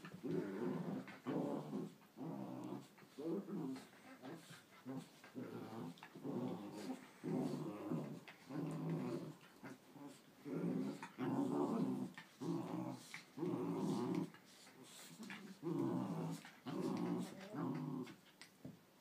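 Dogs growling at each other as they scuffle, in a long run of rough, pitched growls about a second apart with short breaks between them.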